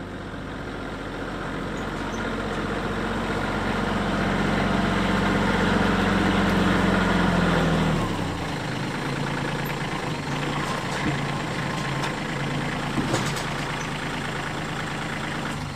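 Compact tractor engine running as the tractor drives up, growing louder; about halfway in the revs drop to a steady idle, with a few light knocks as the load of beams on its forks is lowered to the ground, and the engine stops at the very end.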